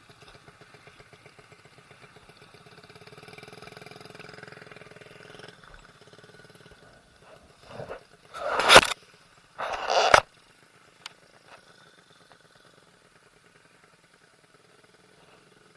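A small engine running with a steady pulsing hum that swells and then stops about five seconds in. Two loud, short rushing bursts follow a second apart a few seconds later.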